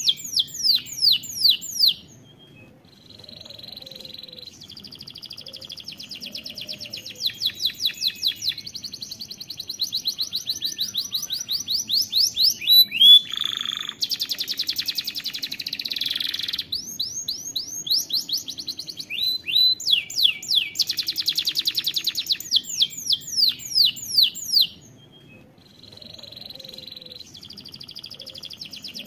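Domestic canary singing a long song of fast trills and runs of repeated down-sweeping notes, with short pauses about two seconds in and near the end.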